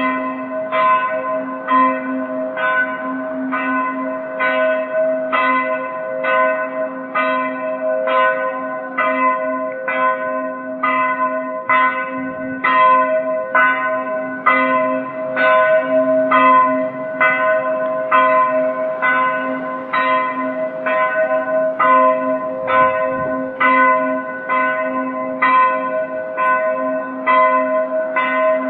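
Church bell ringing in a steady, even rhythm, a little more than one stroke a second. The hum of each stroke rings on under the next.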